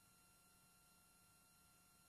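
Near silence: a faint, even hiss with a few thin steady tones and no other sound.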